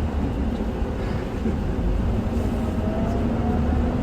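Isuzu Erga city bus (QDG-LV290N1) with its four-cylinder turbo diesel running, heard from inside the passenger cabin as a steady low rumble, with a faint whine rising slightly about two seconds in.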